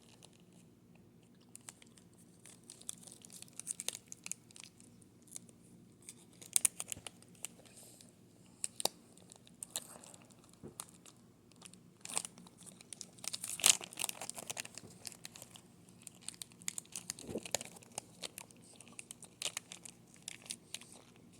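Plastic snack wrapper crinkling and tearing in scattered faint crackles, loudest about two thirds of the way through, with some chewing of a gummy candy.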